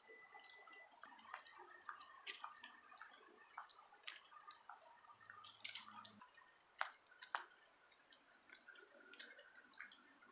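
Near silence: faint outdoor ambience with scattered soft chirps and a few sharp clicks.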